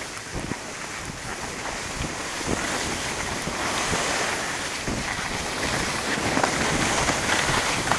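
Steady rushing noise of skiing downhill: wind buffeting the microphone over the hiss and scrape of skis sliding on snow, with a few faint ticks, getting somewhat louder in the second half.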